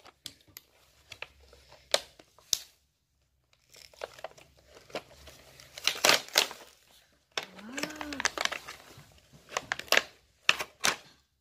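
Thin plastic blister packaging crinkling and tearing as it is peeled off a card of plastic alphabet letters by hand, with irregular crackles and sharp snaps. There is a brief gap about three seconds in.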